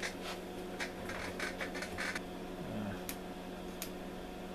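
Two sharp clicks, about three-quarters of a second apart, from the time base rotary switch being turned on an HP 5245L electronic counter. A steady low hum runs underneath, with softer taps and handling noises in the first couple of seconds.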